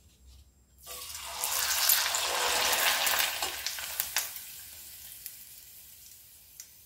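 A rice papad deep-frying in hot oil in a steel kadhai: the oil starts sizzling suddenly about a second in as the papad goes in and puffs up. The sizzle then dies away gradually as the papad is lifted out, with a couple of sharp clicks along the way.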